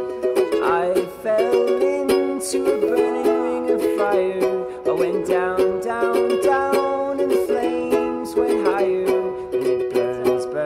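Background music led by a plucked ukulele, with steady rhythmic chords.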